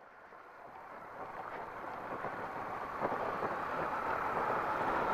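Wind rushing over the microphone while a motorcycle rides on a dirt road, with a few faint knocks. The sound fades in from silence.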